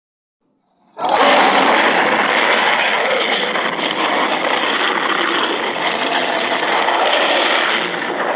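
Kaiju monster roar sound effect: a harsh, noisy roar that starts suddenly about a second in and is held steadily for several seconds.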